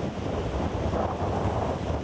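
Heavy storm surf breaking and churning in a steady rush, with wind buffeting the microphone in a low rumble.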